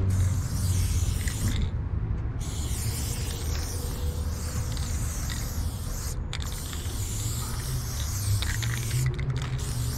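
Aerosol spray paint can hissing in long bursts as a graffiti outline is sprayed on a block wall, stopping briefly about two seconds in, about six seconds in and again near the end. A low rumble runs underneath.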